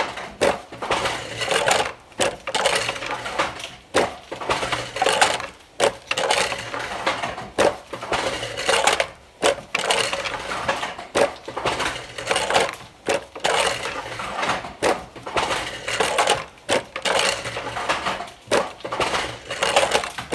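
Flying-shuttle wooden handloom weaving: sharp wooden clacks and clatter as the shuttle is thrown and the batten beats up. The pattern repeats about every two seconds.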